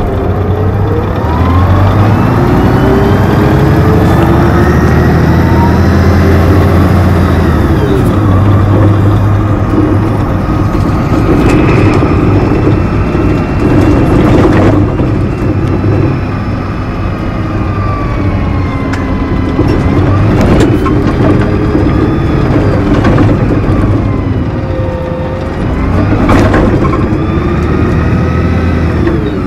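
Neoplan Centroliner double-decker bus's Mercedes-Benz OM 501 LA V6 diesel and Voith DIWA 864.3E automatic gearbox, heard close up at the gearbox hatch while the bus drives. The engine and transmission whine climbs as the bus accelerates, drops at the gear changes, and rises and falls several more times, with a few knocks along the way.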